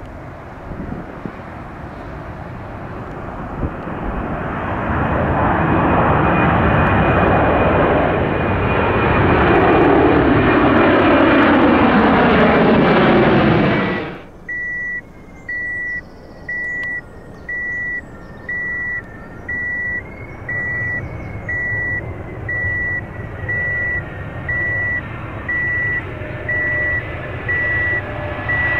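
Airbus A330 jet engines, growing steadily louder as the airliner passes close, cut off abruptly about halfway through. After that a vehicle's reversing alarm beeps evenly, about one and a half beeps a second, over a low rumble.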